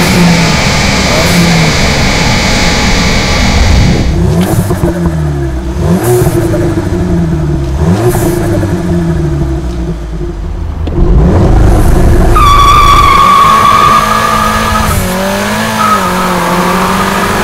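A tuned VW Polo GTI 2.0 TSI turbo four-cylinder engine, revved up and down repeatedly while the car stands still. About twelve seconds in it launches hard with a loud high whine, then accelerates away through the gears.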